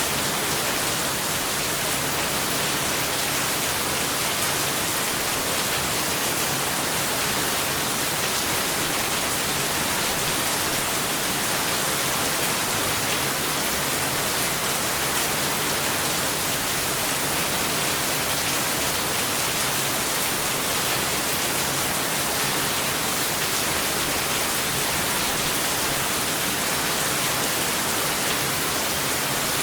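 Heavy rain falling as a steady, even hiss, with no thunder and no separate drops standing out.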